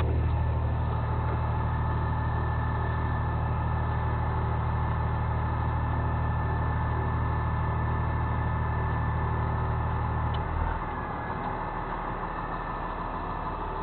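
A truck engine running steadily. About ten seconds in, its strong low hum drops away sharply, leaving a quieter rumble.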